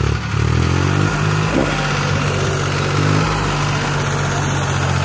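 Compact farm tractor's engine working its front-end loader: it revs up and changes pitch during the first second or so, then runs at a steady speed.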